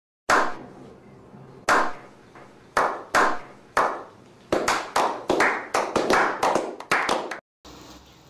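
A slow hand clap that speeds up: single claps about a second apart at first, then quicker claps coming faster and faster for about three seconds before stopping.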